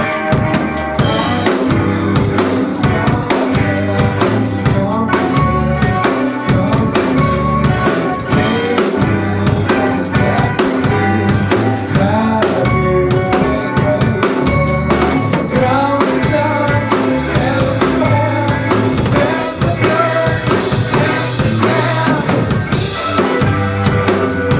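Band playing an instrumental passage: a full drum kit with kick and snare hits keeps a steady beat under a bass line and a melodic line above.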